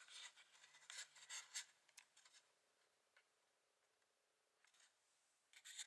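Near silence: room tone with a few faint rustles and scrapes in the first two seconds and again near the end.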